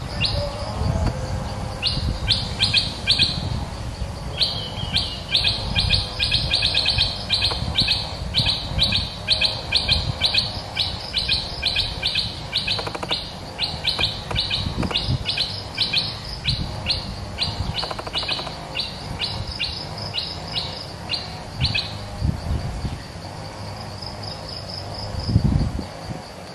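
Stripe-throated bulbul singing: a fast run of short, bright repeated notes, two to three a second, starting about two seconds in and stopping about four seconds before the end. Near the end a faint steady insect buzz and one low thump.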